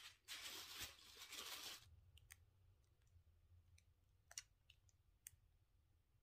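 Clear plastic bag wrapping rustling and crinkling as wrapped decorations are handled, for about the first two seconds, then a few faint scattered clicks and crackles.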